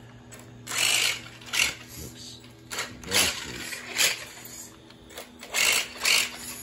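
Brushless-converted Feiyue FY01 RC truck driving on concrete: repeated short bursts of electric motor whine and tyre noise as it accelerates and turns.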